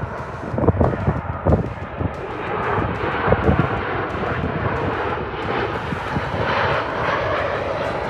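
Jet airliner's engines, loud and steady, as the plane passes, with rough low rumbling surges in the first few seconds.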